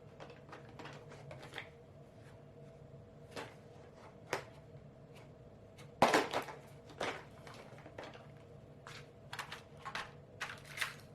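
Scattered clicks, taps and rustles of hands handling a paint-by-number canvas while measuring it, with a louder knock and rustle about six seconds in.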